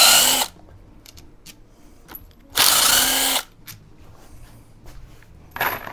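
Cordless impact driver spinning bolts out of a Porsche M96 engine's cam cover in short bursts: one burst ending about half a second in, a second lasting under a second, and a brief third near the end, with small clicks of handling between.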